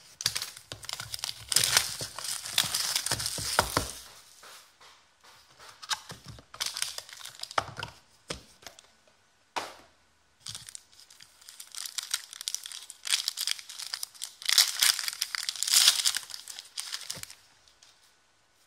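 Trading-card packaging being unsealed and opened: crinkling and tearing as the box's seals come off and its foil-wrapped card pack is torn open. It comes in several bursts with short pauses, loudest near the start and again late on.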